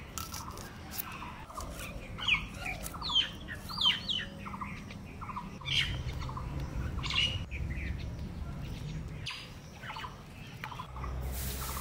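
Birds calling in short, quick chirps that sweep in pitch, a busy cluster about two to four seconds in and more around seven seconds in.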